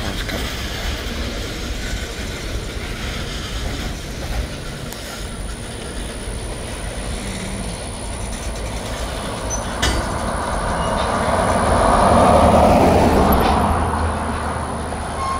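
Freight cars of a Norfolk Southern manifest train rolling slowly past: steady wheel-on-rail noise that swells louder about twelve seconds in, with one sharp click near ten seconds.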